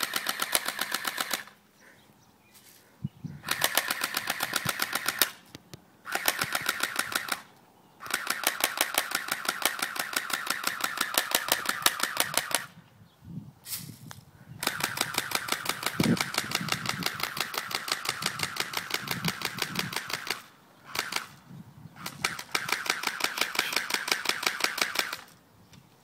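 Airsoft rifle firing fully automatic, in about six bursts of rapid, evenly spaced shots separated by short pauses. The longest bursts run about five seconds, and a couple of single shots fall between them.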